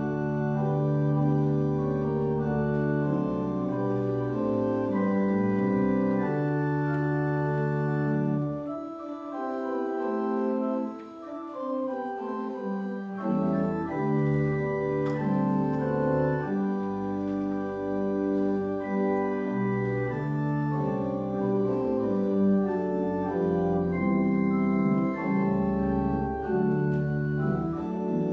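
Organ playing slow, sustained chords. The bass notes drop out for a few seconds about a third of the way through, then return.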